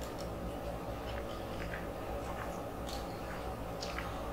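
Quiet room tone with a steady low hum and a few faint short clicks.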